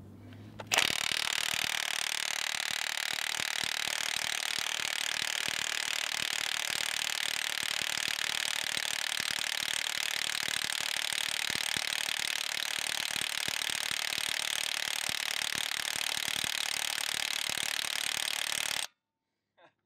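Milwaukee M18 FUEL 2867-20 1-inch cordless impact wrench hammering steadily on an already-tight, bottomed-out nut, which turns only about a sixteenth of a turn further. The hammering starts sharply about a second in, runs for roughly eighteen seconds and stops abruptly near the end.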